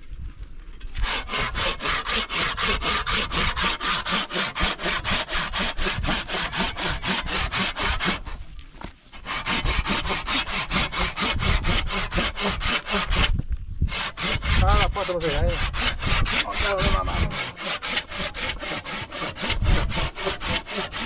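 Hand saw cutting with quick, even back-and-forth strokes, about four a second, pausing briefly twice.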